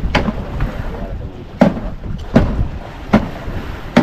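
Fishing boat at sea: a steady low rumble with wind noise on the microphone, and a sharp knock repeating about every three-quarters of a second.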